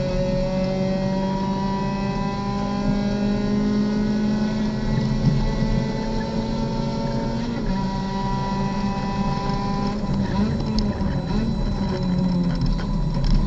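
Race car engine heard from inside the cockpit under full throttle, its pitch climbing steadily, dropping once with an upshift about eight seconds in, then falling and wavering as the car brakes and downshifts near the end.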